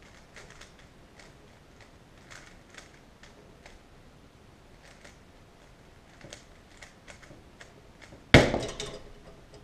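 Rubik's cube layers being turned by hand, a faint irregular clicking. About eight seconds in comes a sudden loud thump, the loudest sound: the cube is put down and the hands slap onto the Stackmat timer's pads to stop the solve.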